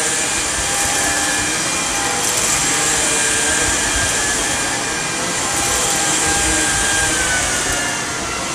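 Samsung Jet VS70 cordless stick vacuum running on low over thick carpet: a steady motor whine with several held tones over a hiss of air and grit, as kitty litter and dirt are drawn up out of the pile.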